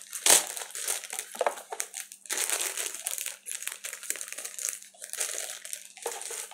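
Packaging crinkling and rustling in irregular crackles as makeup brushes are handled and put away, with one sharp knock about a third of a second in.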